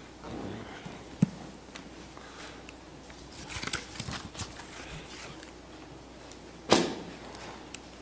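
Handling noise at a lectern with its microphone: a few scattered knocks and clicks and some soft rustling, then one loud thump near the end.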